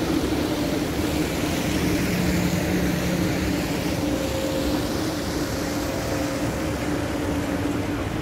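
Modern electric city tram pulling away along the street, its motors whining faintly and rising in pitch as it speeds up, over a steady low hum of traffic. A diesel city bus passes close by.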